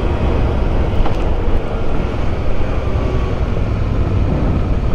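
Motorcycle on the move: steady engine and road noise with wind rushing over the microphone.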